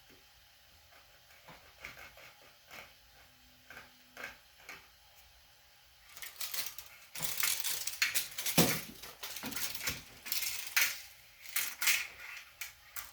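Clinks and rattles of metal parts and hand tools being handled: a few scattered light clicks, then from about six seconds in a denser, louder run of metallic clatter.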